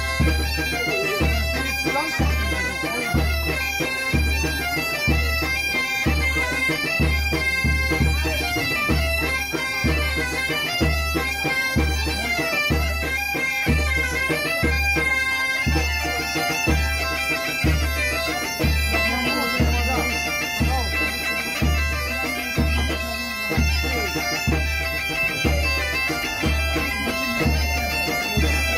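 Background music: a melody of held tones over a steady, regular bass beat.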